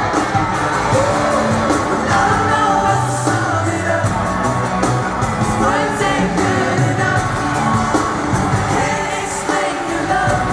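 A boy band singing a pop song live over an amplified backing band, heard from the seats of a large arena, with the crowd cheering faintly beneath.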